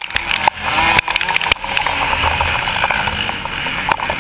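Motocross bike engine running hard and changing pitch as it races, heard close from on the bike, with several sharp knocks in the first second and a half and again near the end.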